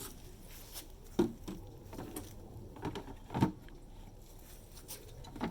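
A few scattered light knocks and clunks, about five over a few seconds, with the loudest a little past halfway.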